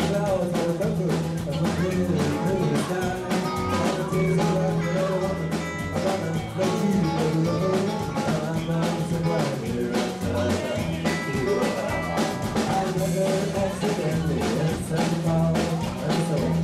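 Live country-rock cover band playing, with a drum kit keeping a steady beat under bass, guitar and sung vocals.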